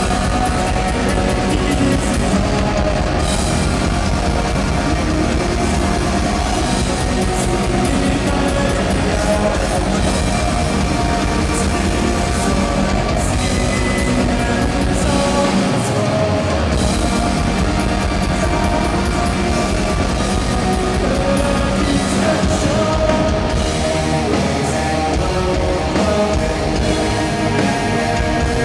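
A metal band playing live, with distorted electric guitars and a drum kit, loud and continuous, picked up by a camera's built-in microphone in the crowd.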